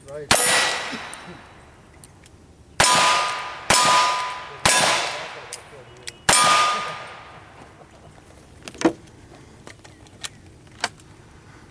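Five gunshots at steel targets, each followed by the ringing of the struck steel plate. The first comes alone, then three in quick succession about a second apart, then a fifth a moment later.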